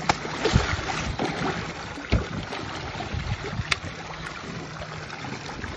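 Water sloshing and splashing against a boat's side, where a large stingray is at the surface and a gloved hand is in the water, with wind on the microphone and three sharp knocks.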